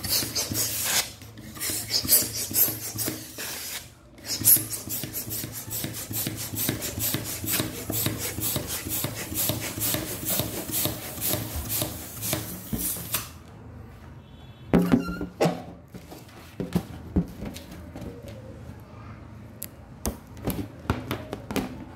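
Hand pump inflating a latex balloon: rapid rasping strokes of air, a few a second, with a short pause about four seconds in, stopping after about thirteen seconds. A brief louder squeak follows a little later, then lighter handling sounds of balloon rubber.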